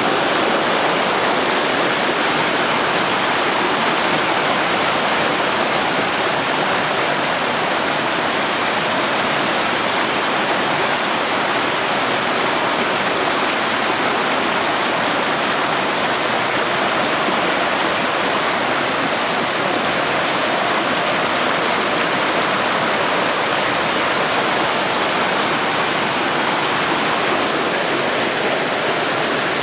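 Floodwater rushing down a flooded street, a steady, loud wash of moving water.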